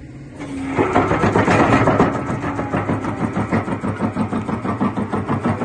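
Xcentric XC30 crusher bucket on an excavator crushing a concrete block: its oscillating steel jaw knocks and crunches in a rapid, even rhythm of several strokes a second over the excavator's engine and hydraulics. The crushing starts and grows loud about a second in.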